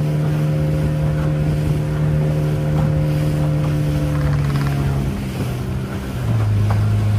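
Motorboat engine running steadily; its note drops about five seconds in and then settles lower and louder about a second later.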